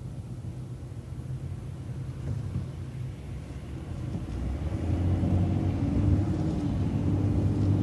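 Transit bus running along a city street, a low engine and road rumble that grows louder about halfway through, with a steady engine hum coming up.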